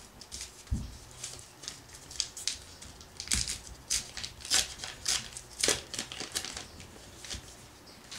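Paper wrapper of a baseball card wax pack being torn open, crinkling and ripping in a run of short, sharp crackles that are busiest in the middle.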